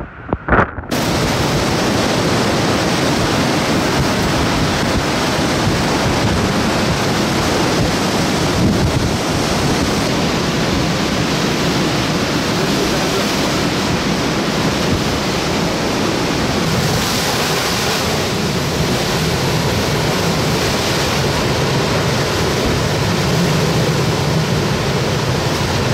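Hurricane Ida's eyewall wind and driving rain making a loud, steady roar, with the wind buffeting the microphone. It begins abruptly about a second in.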